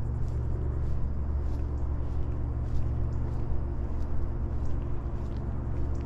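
Steady low rumble of motor traffic with a constant engine hum, and faint scattered ticks on top.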